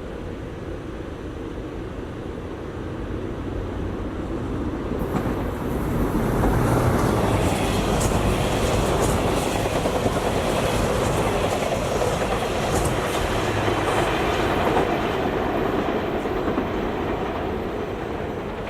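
SEPTA Regional Rail electric commuter train passing: the rumble builds over a few seconds, wheels click over the rail joints for several seconds at its loudest, then it fades.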